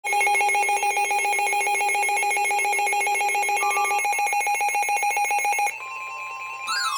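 Electronic alert tones. A loud, rapidly pulsing ringing tone like a telephone bell cuts off after nearly six seconds and gives way to a quieter steady tone near 1 kHz, the weather radio's alert tone. Near the end a wailing siren tone starts over it, rising and falling.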